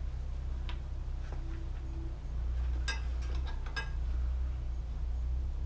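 A few light clicks and clinks, most in a cluster about three to four seconds in, as a bicycle tire spoon levers a stiff urethane tire onto a bandsaw wheel, over a steady low hum.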